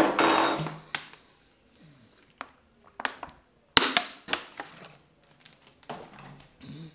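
Handling noise: a sharp knock and a second of rustling at the start, then scattered sharp clicks and knocks of small objects being handled and set down.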